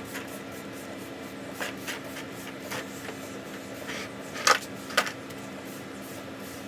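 Scattered light clicks and knocks of hard objects being handled, the two sharpest about four and a half and five seconds in, over a steady low hum.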